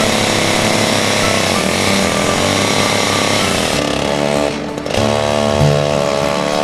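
Chainsaw running at full throttle, cutting into a tree trunk. About four and a half seconds in it drops off briefly, then revs up again.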